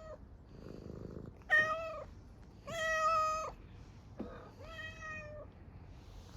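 Hungry street cat meowing for food: three long, level-pitched meows, the middle one the longest and loudest, with a short low purr-like rumble about a second in.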